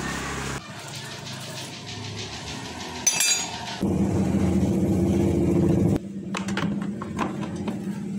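Metallic clinking of tools and parts, then a small electric motor running steadily for about two seconds and cutting off suddenly, followed by a few light taps.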